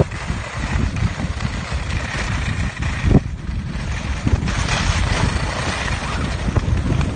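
Wind rushing and buffeting over the microphone while skiing downhill, with the hiss of skis sliding on the snow. There is one knock about three seconds in, and a short lull in the hiss follows it.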